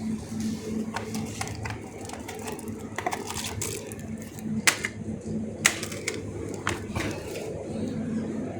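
Shop ambience: a steady low hum with scattered sharp clicks and knocks, like goods and packaging being handled, two of them louder about halfway through.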